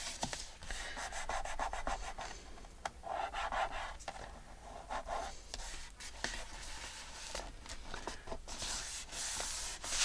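Hands rubbing and smoothing a glued paper piece flat onto a journal page: dry paper scraping and rustling in irregular strokes, with a few light clicks and taps.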